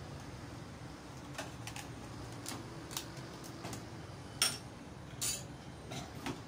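Light clicks and clinks of a metal spoon against a plastic ice cream tub and ceramic bowls, scattered and irregular, the loudest about four and a half seconds in. A steady low background hum lies under them.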